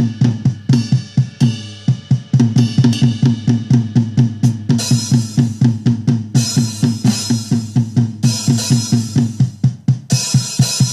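Programmed drum-kit beat from XLN Audio Addictive Drums 2 software, with kick and snare in a fast, steady pattern. A cymbal wash joins about halfway through, drops out briefly twice, then returns near the end.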